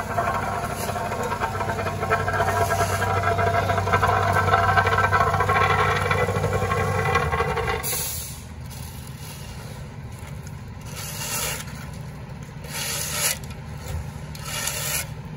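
An engine runs loudly and steadily, then drops to a quieter idle about eight seconds in. After that come a few short scrapes of an asphalt rake pulling loose asphalt mix across concrete, about every two seconds.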